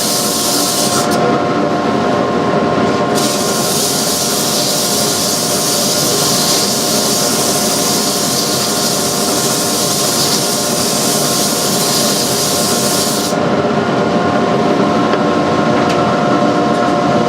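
Sandpaper hissing against a spinning wood spindle on a lathe, over the steady whine of the running lathe and dust collection. The sanding hiss breaks off briefly about a second in, resumes, then stops about three-quarters of the way through while the machinery keeps running.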